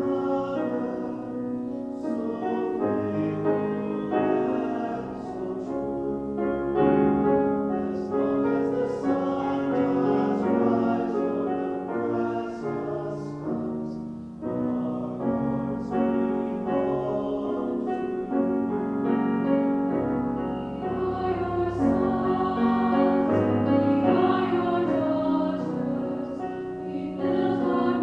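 A mixed choir singing a choral anthem in harmony, accompanied by a grand piano, with a brief softer moment about halfway through.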